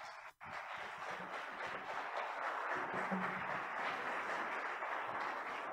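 Audience applauding, many people clapping at a steady level, with the sound cutting out for a moment near the start.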